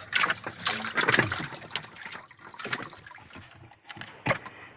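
Water splashing and sloshing, busiest in the first second or two and then dying down, with one sharp knock near the end.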